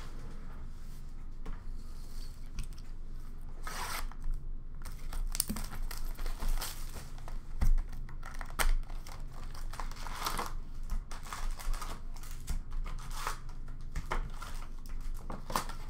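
Packaging of an Upper Deck Series 1 hockey card box being opened by hand: wrapping and cardboard torn and crinkled in short, irregular rips.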